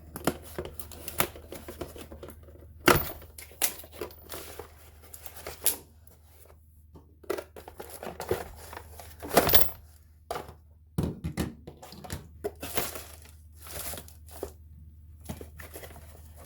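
Unboxing sounds: cardboard and plastic packaging rustling and tearing by hand, with scattered sharp clicks and knocks, the loudest about three seconds in and again around the middle.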